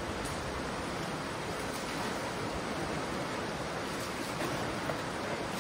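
Steady rush of a shallow river flowing over rocks, an even wash of water noise with no distinct events.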